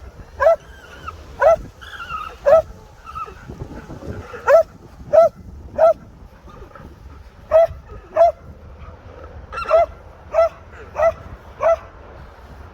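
Alpaca alarm call: a string of about a dozen short, sharp calls, roughly one a second and some in quick pairs, the herd's warning of a perceived threat.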